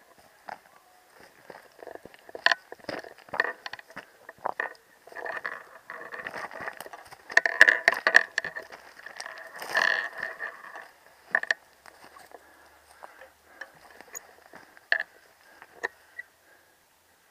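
Dry scrub and brush rustling and crackling as it is pushed through, in uneven bursts with sharp snapping clicks, loudest about a third of the way in and again around halfway.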